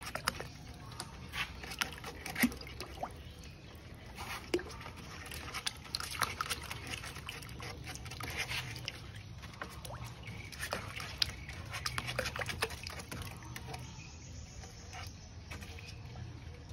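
Water splashing and lapping in a tub with scattered sharp clicks and taps, as a Florida snapping turtle moves through the water. The clicks come irregularly and are busiest over the first thirteen seconds, then thin out.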